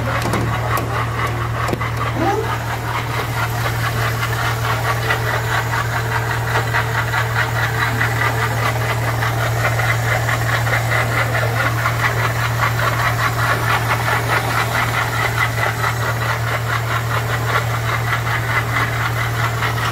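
Volvo 16-valve engine idling with a fast, even ticking knock over a steady hum. The noise comes from a failing water pump gone loose in its bearing.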